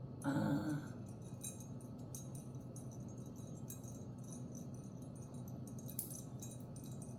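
Light clicks and jingling clinks of a metal bag charm, a Louis Vuitton Fleur de Monogram charm, being handled, with a short hummed 'mm' near the start.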